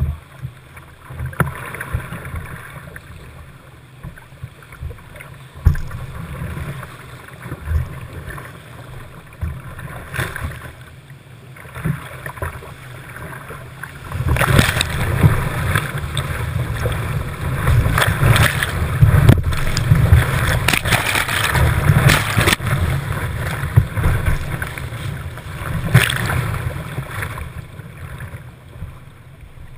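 Whitewater river rushing and splashing around a kayak, heard close up from the boat's deck, with frequent sharp splashes and knocks. The rush grows much louder about halfway through as the kayak runs a foaming rapid, then eases off near the end.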